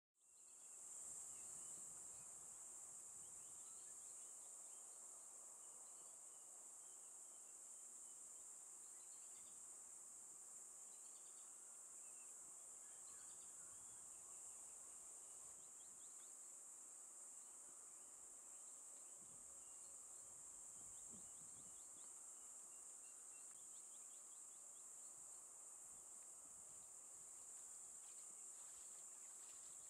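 Faint insect chorus: a steady high-pitched drone with scattered faint bird chirps over it.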